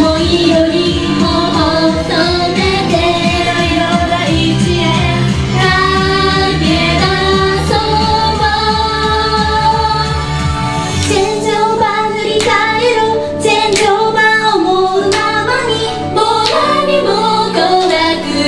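Japanese idol pop song performed live: a female group singing into microphones over a recorded backing track with a steady beat. About eleven seconds in the low beat drops out, leaving the voices over lighter accompaniment with sharp percussive hits.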